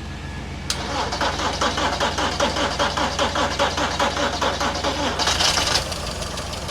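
Seat Arosa engine cranking on its starter at about five strokes a second for some four seconds, then catching with a brief rev and settling into idle. This is its first start on freshly cleaned and refitted fuel injectors.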